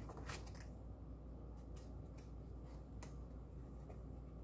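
Faint room tone: a low steady hum with a few soft, scattered clicks.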